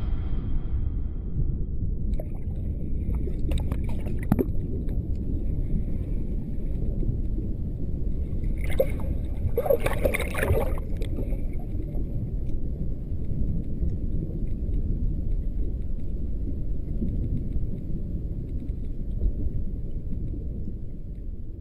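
Muffled underwater rumble of moving water, heard through a GoPro's waterproof housing in a tiger's pool. Brief splashing and bubbling comes about four seconds in, and louder churning from about nine to eleven seconds in as a swimming tiger paddles past the camera.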